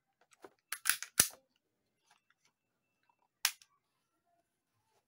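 Sharp clicks and clacks from handling a WE G26 gas blowback airsoft pistol: a quick cluster about a second in, including the loudest click, then one more single click about three and a half seconds in.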